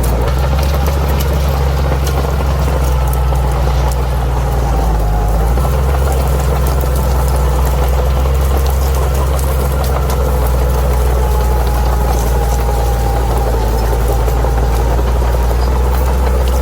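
Bulldozer's diesel engine running steadily, its low note holding with only small shifts.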